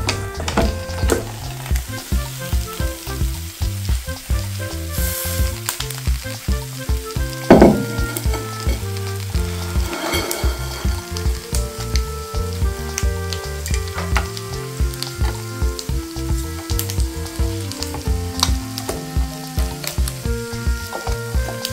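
Egg sizzling in a hot waffle maker, with background music that has a steady beat. A loud thump comes about seven and a half seconds in.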